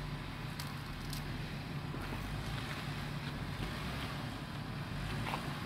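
Jeep Wrangler engine running at low revs as it crawls over a rocky off-road track: a steady low rumble, with a few faint clicks.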